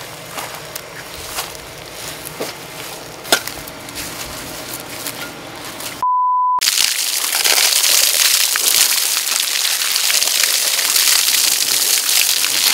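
Rustling of grass parted by a gloved hand, with small scattered cracks. A little after halfway comes a short steady electronic beep, then a loud steady stream of water pouring and splashing onto a person.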